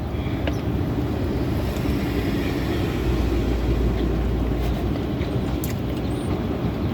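Steady motor vehicle noise: a low rumble with a hiss over it, swelling up at the start and holding even.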